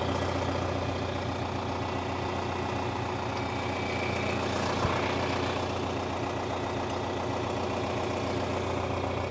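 Old farm tractor engine idling steadily, with one short knock about five seconds in.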